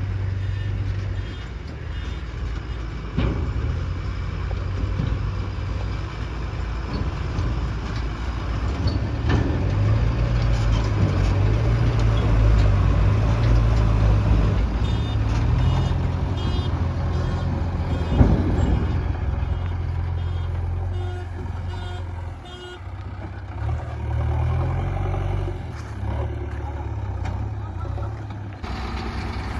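JCB backhoe loader's diesel engine working, revving up and down under load, with a few sharp clunks. Short runs of reversing beeps come in now and then.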